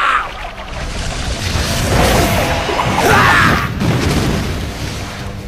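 Anime fire-attack sound effects: rushing bursts of flame with a boom, loudest about three seconds in, over background music.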